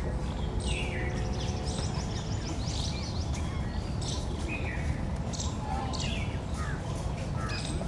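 Birds chirping, short downward-sliding calls coming about twice a second, over a steady low background rumble.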